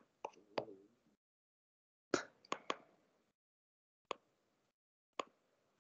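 A handful of short, sharp computer mouse clicks, spaced irregularly, with dead silence between them, made while switching which screen is being shared.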